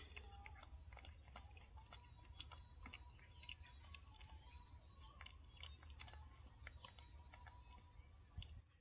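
Baby macaque chewing bread: faint, irregular little clicks and smacks of eating.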